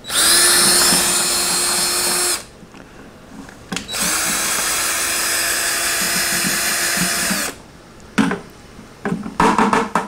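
Cordless drill spinning an ear of sweet corn through a Kernel Kutter ring stripper, shaving the kernels off the cob. The motor whines steadily in two runs, about two and a half and three and a half seconds long, with a short pause between.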